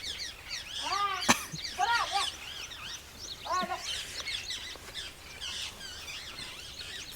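Many small birds chirping busily and continuously, with a few short, lower arching calls and a single sharp click about a second in.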